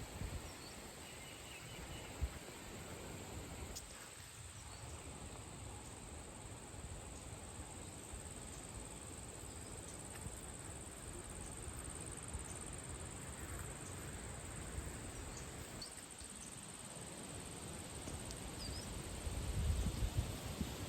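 Insects chirring steadily in a high, even drone over a faint background hiss, with a few faint short chirps. Low rumbling comes up near the end.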